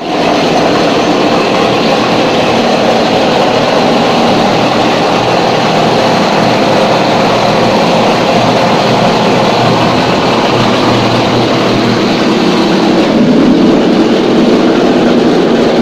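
Automatic wall-rendering machine running with a loud, steady mechanical noise as its plastering carriage climbs the aluminium mast. A deeper note comes in about thirteen seconds in.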